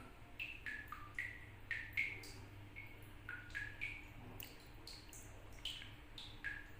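Water drops falling from a tap, each landing with a short pitched plink, irregularly about two or three times a second and at varying pitches, so the drips sound almost like a tune.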